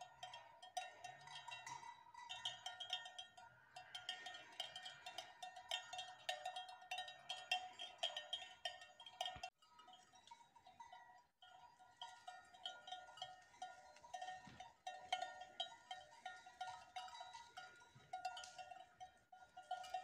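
Cowbells on grazing cows clanking irregularly and fairly faintly, with a brief break about halfway.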